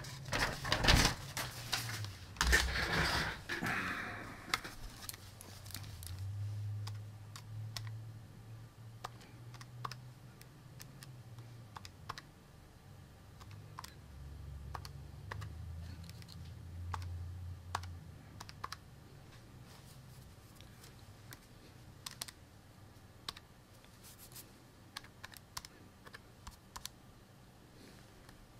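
Keys being typed in faint, irregular clicks, as when values are keyed in to work out a result. The first few seconds hold louder knocks and rustles of handling.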